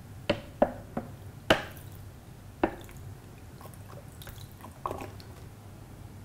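Filtered water dripping from the neck of a homemade plastic-bottle sand filter into a glass beaker: separate drops, five clear ones in the first three seconds, then a few fainter ones.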